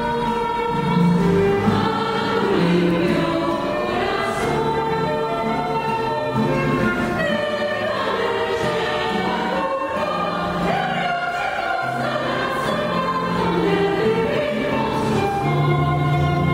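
Choir singing a folk song in several parts, accompanied by classical guitars and a flute.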